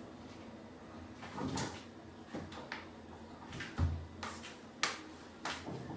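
Refrigerator door and contents being handled: scattered light knocks and clicks, with a dull thump a little under four seconds in as a covered bowl is taken out.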